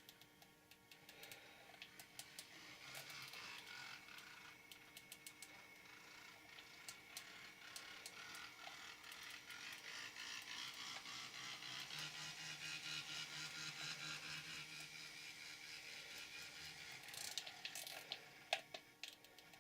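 Trix N-scale model locomotive 16271 running: its small motor and gear train whirring, with many light clicks and rattles. It grows louder toward the middle and eases off again near the end.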